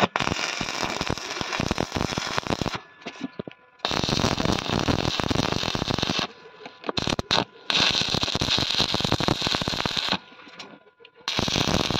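Manual stick (arc) welding: the electrode's arc crackles loudly in about four runs of roughly two seconds each, stopping in short gaps and striking again, as the square steel bars are tack-welded to the steel window frame.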